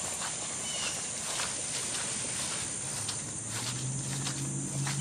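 Steady high-pitched insect chorus, with scattered soft clicks and a low steady hum that comes in about three seconds in.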